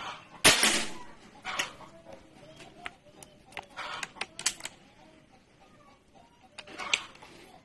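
A .22 calibre PCP air rifle fires once about half a second in, a sharp crack with a short fading tail. Several lighter clicks and knocks follow.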